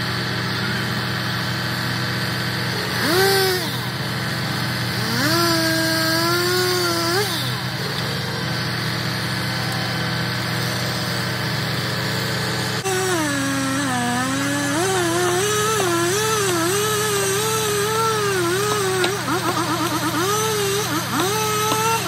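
Chainsaw revving and cutting through a fallen pine trunk, with its pitch wavering up and down as it works. A short rev comes about three seconds in and a longer one around six seconds, then cutting runs nearly without pause from about thirteen seconds on. Under it is the steady hum of a truck engine running.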